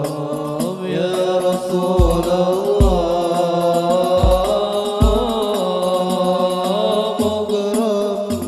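Hadroh ensemble playing sholawat: a drawn-out, wavering sung melody over frame-drum patter, with several deep bass-drum strokes.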